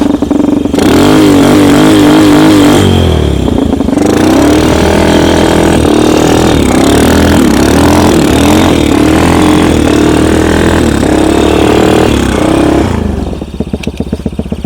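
Homemade snowmobile's engine revving up hard from idle under load: one burst of about two seconds, a brief dip, then high revs with wavering pitch for about nine seconds before dropping back to idle near the end.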